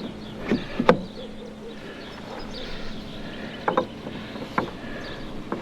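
A few scattered knocks and clicks of hard parts meeting as a 10-litre fuel container is fitted onto its door-hinge mount, the sharpest about a second in.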